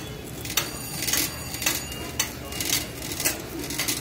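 Metal shopping cart rattling and clinking as it is pushed along, in short irregular clatters about twice a second.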